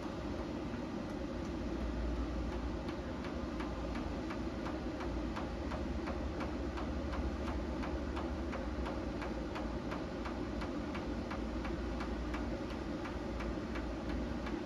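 Steady low rumble of a jet airliner passing high overhead, with a fast, even ticking running through it.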